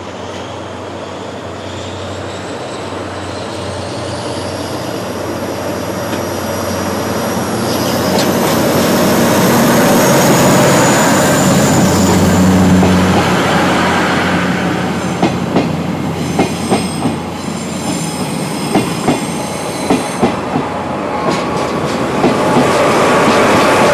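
A train hauled by JNR Class DE10 diesel-hydraulic locomotives passes: the engine's hum swells to its loudest about halfway through, with a thin high whine rising in pitch as it approaches. Then the wheels click over rail joints in quick groups, and a second swell of engine sound comes near the end.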